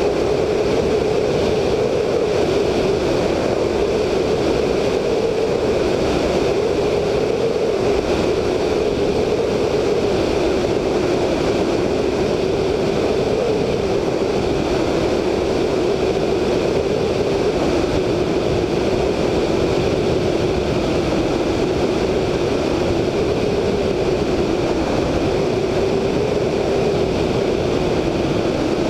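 VL Viima II biplane's Siemens-Halske Sh 14A seven-cylinder radial engine running steadily in cruise flight. It is heard from the wingtip under heavy wind rush on the microphone.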